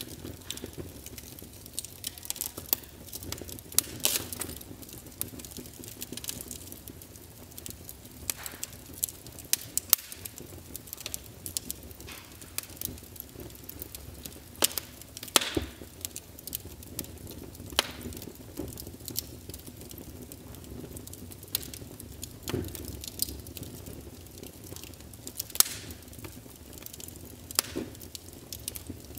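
Irregular sharp crackles and pops, several a second with a few louder ones, over a low steady rumble.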